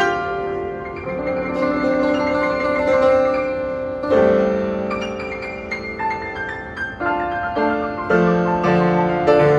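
Piano music: a slow passage of held chords and melody notes, the harmony changing every second or so.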